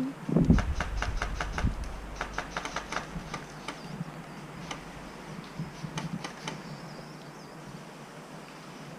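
Airsoft guns firing: sharp cracks come in quick, irregular runs of several a second, densest in the first three seconds and thinning out by about six and a half seconds. A low thump comes right at the start.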